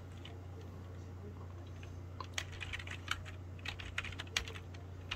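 Computer keyboard being typed on: irregular key clicks, starting about two seconds in, over a steady low hum.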